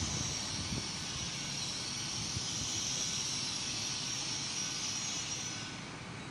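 Train standing at the station with its engines running: a steady high hiss over a low rumble, the hiss dying away near the end.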